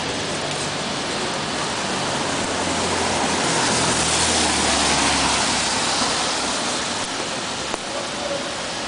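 City street traffic noise: a steady hiss, with a vehicle's engine and tyre noise swelling as it passes about four to five seconds in.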